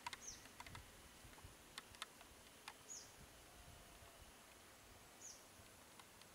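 Faint forest ambience: a bird gives a short, high, falling call three times, a couple of seconds apart, over a faint steady insect hum and scattered sharp clicks.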